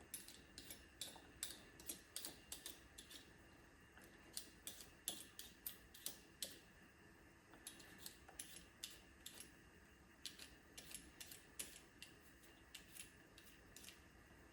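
Ginger root being peeled: a series of faint, quick scraping strokes, about two or three a second, with short pauses between runs.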